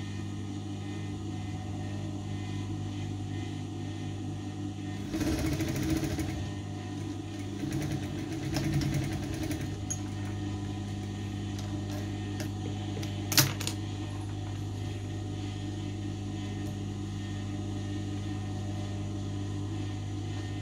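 Sewing machine stitching in two short runs, about five and about eight seconds in, over a steady low motor hum, with one sharp click about thirteen seconds in.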